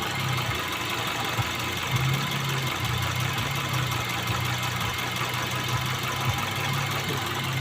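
Car engine idling unevenly, its steady low hum stumbling and breaking at irregular moments with a few sharper pulses: the rough idle of an engine misfire.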